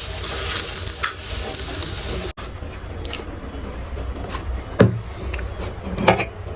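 Food sizzling in a hot frying pan, a loud steady hiss that cuts off abruptly about two seconds in. After that there is a quieter background with a couple of short knocks.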